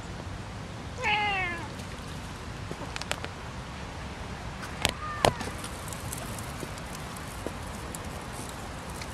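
Siamese cat meowing: one drawn-out meow falling in pitch about a second in, then a shorter call with a few sharp clicks around five seconds in.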